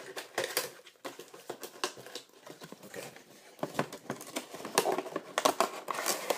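Cardboard action-figure box being handled and opened by hand: irregular rustling, scraping and sharp clicks of card and packaging, busier in the second half.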